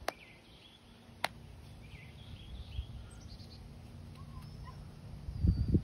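Small birds chirping and calling in the background, with short scattered chirps and a thin high whistle, over a faint steady low hum. A burst of low rumbling noise on the microphone comes near the end.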